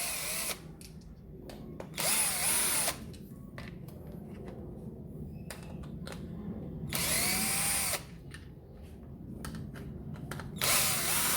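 A cordless drill-driver running in short bursts of about a second each, four times, its motor whine rising and falling with each burst, while backing out the screws of a cordless drill's battery pack case. Light handling clicks come between the bursts.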